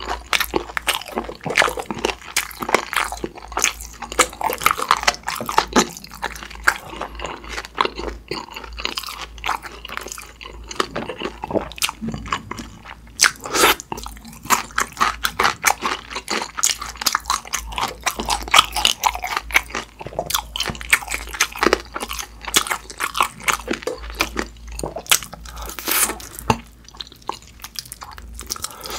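Close-miked eating of sweet-spicy sauced (yangnyeom) fried chicken drumsticks: a run of crunchy bites into the coated skin and wet chewing, with many irregular crunches throughout.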